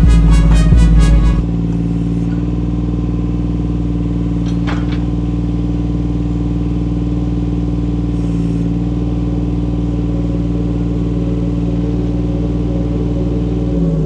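A mini excavator's diesel engine running at a steady speed, with a single metallic clank about five seconds in; near the end the engine note drops in pitch. Background music ends about a second in.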